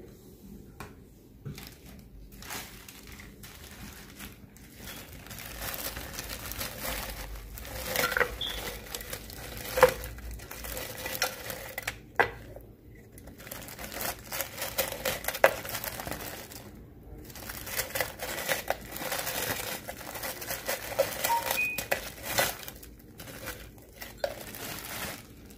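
Crushed ice being shaken out of a plastic zip bag into a glass blender jar. The bag crinkles, and the ice pieces clink and rattle against the glass on and off.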